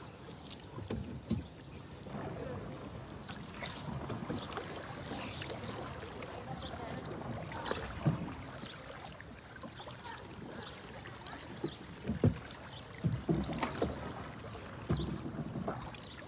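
A hand paddle dipping and pulling through water as a narrow boat glides along, with water swishing along the hull. Sharp knocks come now and then, the loudest about 8 and 12 seconds in.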